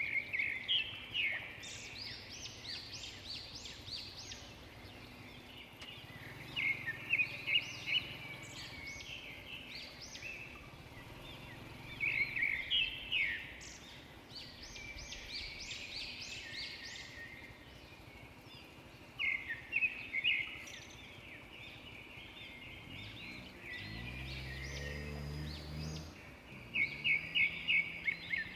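A bird singing loud phrases of rapid, high repeated notes, one burst every few seconds. About three-quarters of the way through, a vehicle engine comes up beneath it, rising in pitch.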